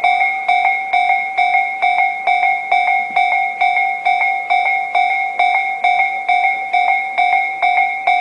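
Japanese railway level-crossing warning bell ringing steadily, with a clanging two-tone ding about twice a second.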